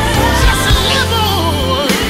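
Gospel song with a lead voice singing a wavering run that falls in pitch in the second half, over a steady bass and band.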